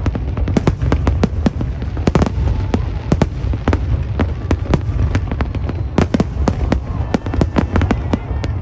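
New Year fireworks display: a rapid, irregular string of bangs, several a second, over a steady low rumble.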